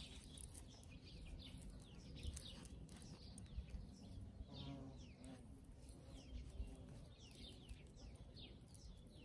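Faint birds chirping in the background: many short, quick falling chirps, scattered throughout, over a low rumble.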